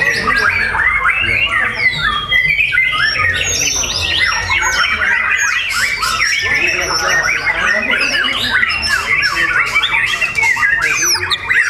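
A caged bird calling in a long, fast, unbroken run of chirps, squawks and short sliding notes.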